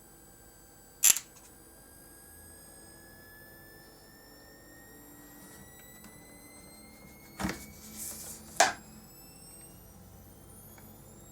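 Faint high-pitched whistle from the Samsung SyncMaster 2043 monitor's power electronics, several thin tones slowly rising in pitch: the whistling fault the monitor came in with, still present after its capacitors were replaced. A sharp click about a second in and two more clicks around three-quarters of the way through.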